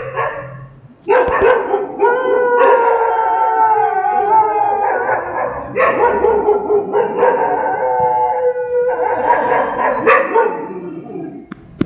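A pack of dogs howling together, several long drawn-out howls overlapping at different pitches and slowly sagging in pitch, with a few short barks near the start and again near the end.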